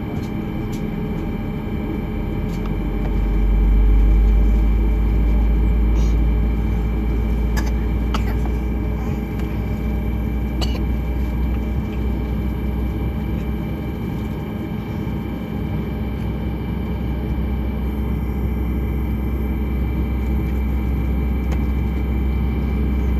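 Boeing 737 MAX 9 cabin noise while taxiing: a steady deep rumble with the hum of its CFM LEAP-1B engines at low thrust, swelling for a few seconds about three seconds in.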